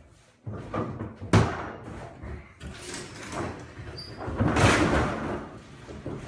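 Knocks and bangs: a sharp bang about a second and a half in, then a longer, louder stretch of noise with thumps about four and a half seconds in.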